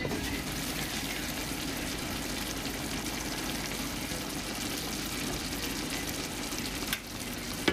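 Chicken pieces simmering in a broth-and-vinegar sauce in a large skillet, a steady sizzling bubble that holds an even level as the glass lid comes off. A light click near the end.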